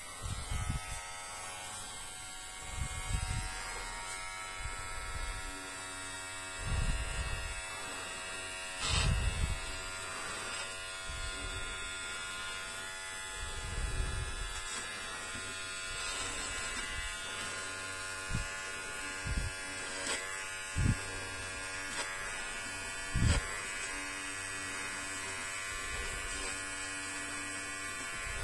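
Electric hair clipper switched on and buzzing steadily as it cuts a doll's synthetic hair. Short low bumps come every few seconds as it is pressed and moved against the doll's head.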